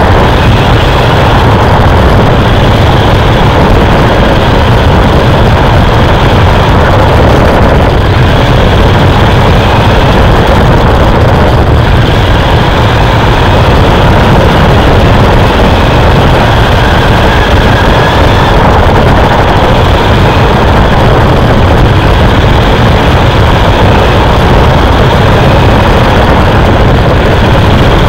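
Racing truck running on the course, heard from its onboard camera: a constant, heavily overloaded rumble and rush of motor and running gear, with a faint whine that rises and falls in pitch.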